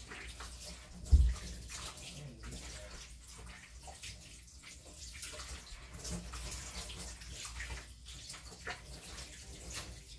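Tap water running into a kitchen sink while hands wash and splash something under it, with an uneven, sloshing rush. A single dull thump about a second in.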